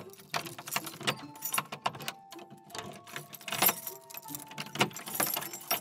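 Metal clicking and jangling at a door lock as it is being worked open, a quick irregular run of sharp clicks and rattles.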